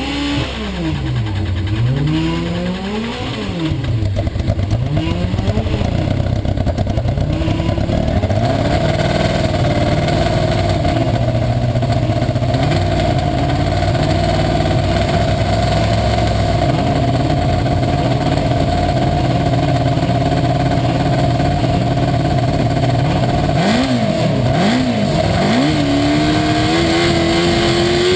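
Formula SAE race car engine revved up and down several times, then held at a steady high speed for a long stretch. Near the end it is blipped a few times and settles at a higher steady speed, as in a sound-level test run.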